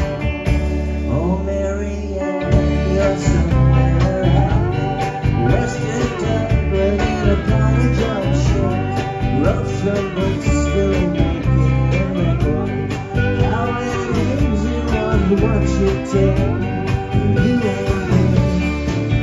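Live rock band playing: electric guitars, bass and drum kit, with a lead guitar line that bends and glides in pitch over the chords.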